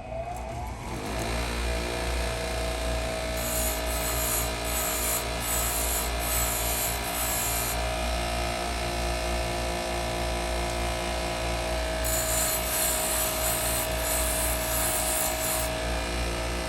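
An electric grinder spins up with a rising whine and runs steadily as a malleable iron key blank is ground down. There are two spells of harsh grinding where the metal is pressed against it, each a few seconds long.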